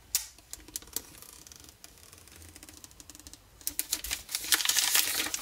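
Packaging wrap being pulled and torn off a new iPhone 12 mini box. It starts with a few sharp clicks and faint rustling, then turns into dense crackling and tearing from about four seconds in.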